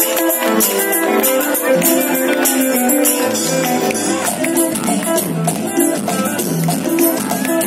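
Live band music played through a PA system, with a steady, fast percussion beat under a melodic line; a bass line comes in about three seconds in.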